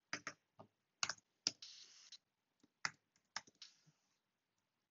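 Computer keyboard typing: separate keystrokes at an uneven, hesitant pace, with short pauses between small runs of keys.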